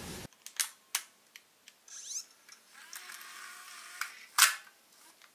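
Mechanical clicks from a JVC Mini DV camcorder's body and cassette compartment as it is handled and opened. Several sharp separate clicks, with a short whir about two seconds in; the loudest click comes about four seconds in.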